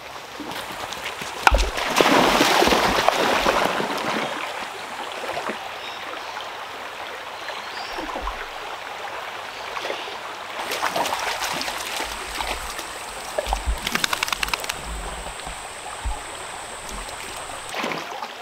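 Shallow rocky creek running and gurgling while dogs wade and splash through it, loudest about one and a half to four seconds in. A thin steady high whine sits behind the water for several seconds in the second half.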